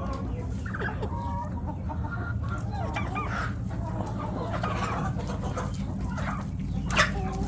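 Chickens clucking, many short calls overlapping throughout, over a steady low hum, with one sharp, louder sound about seven seconds in.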